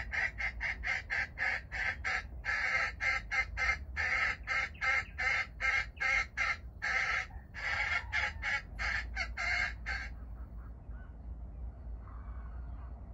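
Jungle fowl calling: a rapid run of clucking notes, about three a second, that stops about ten seconds in.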